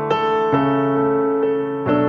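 Background piano music: slow chords held and changed every second or so.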